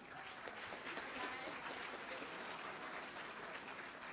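Audience applauding, a steady patter of many hands clapping that eases off slightly near the end.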